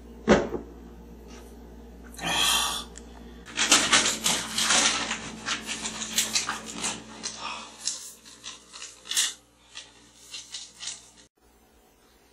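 A sharp knock, then several seconds of loud, rapid rustling and crackling of paper sheets being grabbed and handled, which cuts off suddenly near the end.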